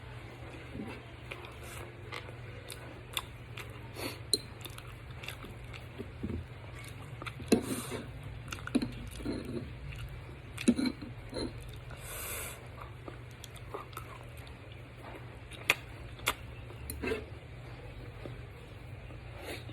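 Close-up eating sounds of a person chewing boiled saba bananas, with wet mouth smacks and short sharp clicks scattered throughout. A steady low hum runs underneath.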